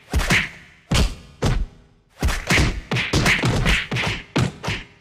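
A rapid series of punching hits, about a dozen sharp whacks, each with a short swishing tail, some in quick pairs, with a brief pause about two seconds in.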